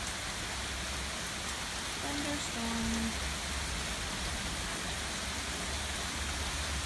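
Rain pouring down steadily in a thunderstorm, an even hiss with a low rumble underneath.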